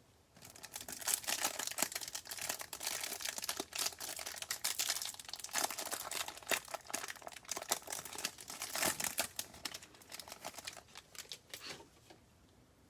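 Plastic trading-card pack wrapper crinkling and tearing open, with many small crackles and clicks as the cards are handled. It dies away about a second before the end.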